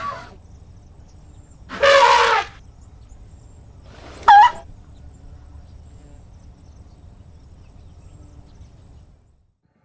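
Elephant trumpeting: a loud half-second blast about two seconds in, then a shorter, high call that dips in pitch about four seconds in, over faint low background noise.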